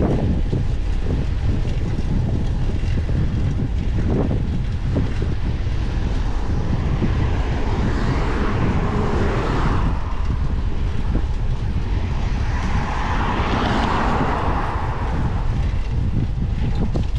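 Wind buffeting the microphone of a camera on a moving bicycle, a steady low rumble, with passing traffic swelling up and fading away twice, about halfway through and again a few seconds later.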